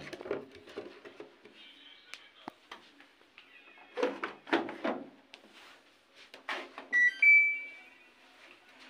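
Clattering and knocking of plastic containers and the detergent dispenser drawer of a Samsung front-loading washing machine being handled, then two electronic beeps from the washer's control panel about seven seconds in, a short one followed by a slightly higher, longer one, as the machine is switched on and set.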